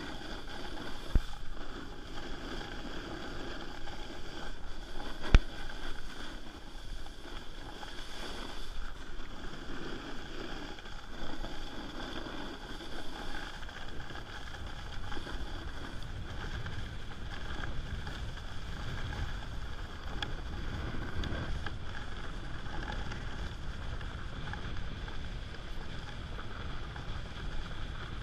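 Snowboard sliding and carving down groomed snow: a steady scraping hiss that swells and eases with the turns, mixed with wind noise on the microphone. Two sharp knocks, about one and five seconds in, the second the loudest.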